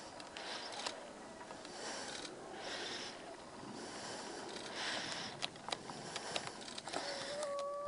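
A person breathing softly close to the microphone, one breath about every two seconds, with a few sharp clicks in the second half.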